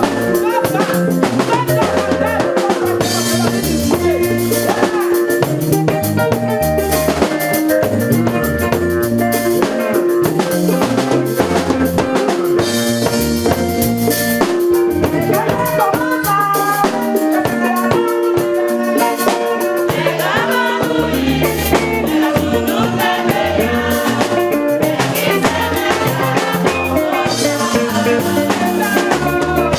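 Live worship band playing a steady groove on drum kit, bass and keyboard chords.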